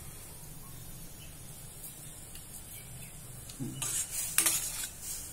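Steel ladle stirring thin, simmering gravy in a steel kadai. A cluster of scrapes and clinks against the pan starts a little before four seconds in, over a steady low hum.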